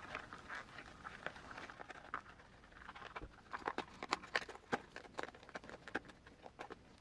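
Faint, irregular clicks and rustles of hands working rubber RC crawler tires, with their foam inserts, onto the wheels; the small knocks come more often after the first few seconds.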